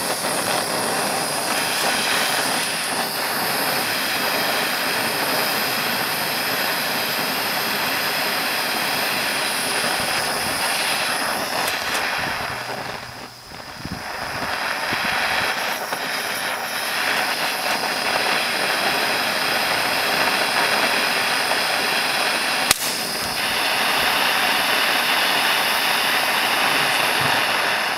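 Mini blowtorch burning with a steady hiss as its flame is played over dried-out electrolytic capacitors. The hiss dips briefly about halfway through, and a single sharp click sounds near the end.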